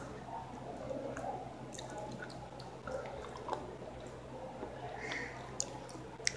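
Close-up mouth sounds of someone chewing: wet smacks and scattered sharp little clicks, over a faint steady hum.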